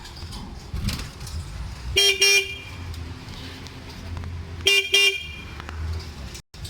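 A vehicle horn gives two quick toots, then two more nearly three seconds later, over the low, steady running of a small tour bus.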